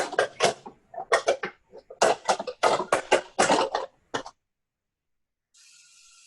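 A quick run of short, harsh bursts for about four seconds, then after a pause a steady hiss begins near the end.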